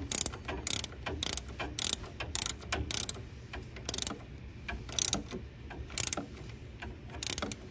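Hand ratchet wrench clicking in short repeated strokes as the 13 mm pinch bolt on the steering shaft coupling is tightened down.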